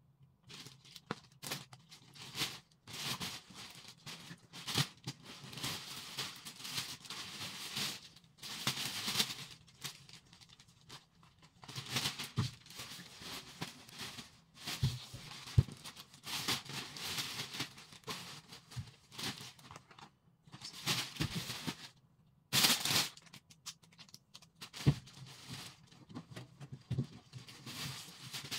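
Plastic bags and snack wrappers rustling and crinkling as they are handled, in irregular bursts with a few short, sharp louder ones.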